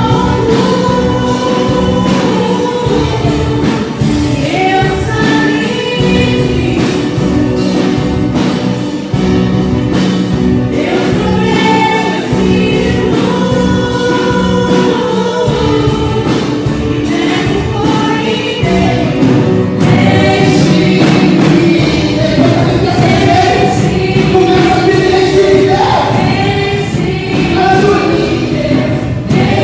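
Choir singing a Christian worship song over instrumental backing with a steady beat.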